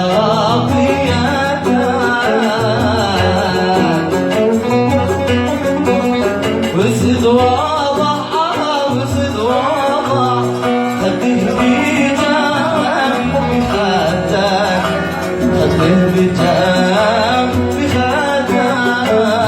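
Oud playing a Yemeni Sanaani song, with a male voice singing over it.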